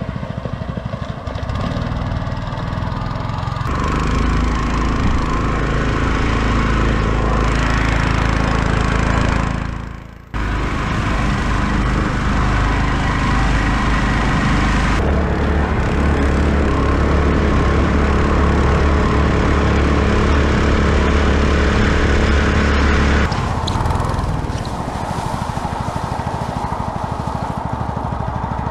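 Small petrol engine of a longtail mud motor running hard at steady high throttle, pushing a surfboard along. The engine note shifts abruptly several times, with a brief dropout about ten seconds in.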